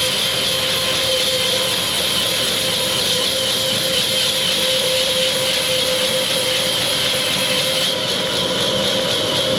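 Sawmill machinery running steadily: a constant mechanical drone with a steady whine over it.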